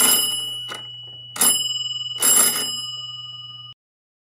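Bronze Victorian mechanical twist doorbell mounted on a door, being turned and rung repeatedly: a short rattle of the hammer striking the bell dome about once a second, each leaving a high ringing tone that fades. The ringing cuts off abruptly near the end.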